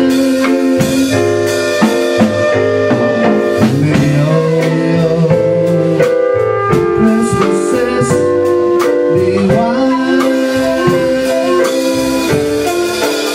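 Live band playing: held keyboard chords and a woodwind line over a drum kit keeping time with cymbal and drum hits.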